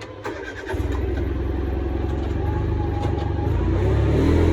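A couple of clicks, then a vehicle engine comes on about a second in and runs steadily, picking up speed and getting louder near the end.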